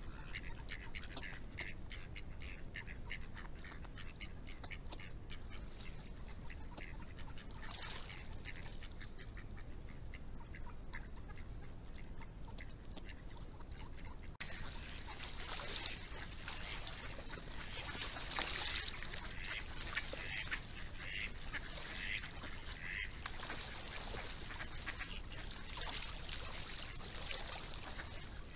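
Mallards calling: a fast run of short quacks, then after a break about halfway through, louder and more crowded quacking. A hen mallard out of sight is among the callers.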